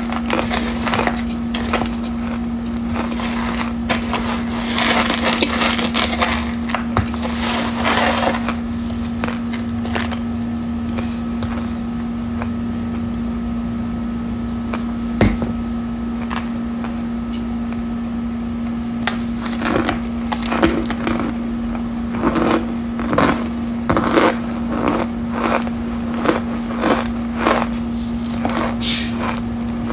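Scented cornstarch powder being eaten: short, crisp crunches and squeaks of packed starch between the teeth, in bunches, over a steady low hum.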